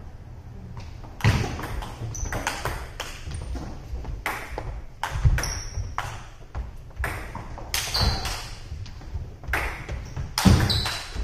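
Table tennis rally: the celluloid-type ping-pong ball is struck back and forth by rubber-faced paddles and bounces on the table, a quick run of sharp pinging clicks at irregular intervals of about half a second.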